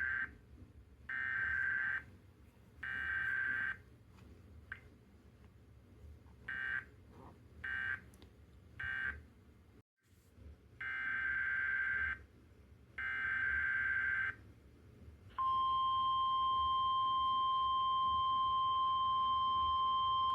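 NOAA Weather Radio SAME data bursts: a run of raspy, warbling digital bursts of about a second each, with several shorter ones in between and a brief dropout. From about fifteen seconds in, the steady single-pitch 1050 Hz weather radio alert tone sounds without a break.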